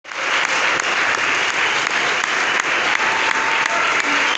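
An audience clapping steadily, a dense, even applause.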